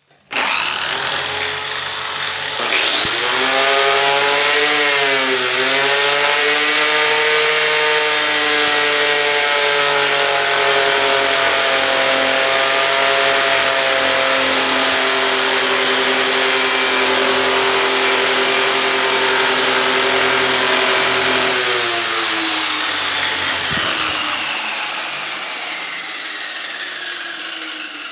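Home-adapted bench drill starting up with a rising whine, its pitch dipping briefly about five seconds in as it bites into wood, then running steadily with a rasping wood-cutting noise. Near the end the whine falls in pitch as it spins down.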